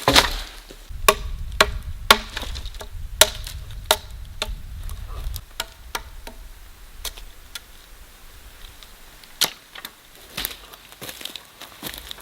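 A tool striking wood in a series of sharp, irregular knocks, some with a brief ring. The knocks come about once every half second to a second at first, then more sparsely. A low rumble sits under the first few seconds.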